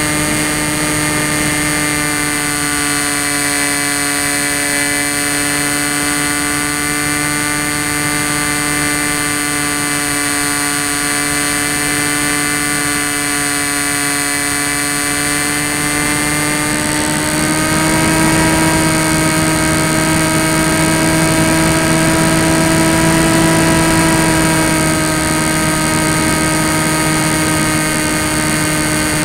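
Tek Sumo foam flying wing's electric motor and propeller heard from the onboard camera: a steady high whine with airflow hiss. About two-thirds of the way in it steps up in pitch and gets louder, then eases back a little near the end.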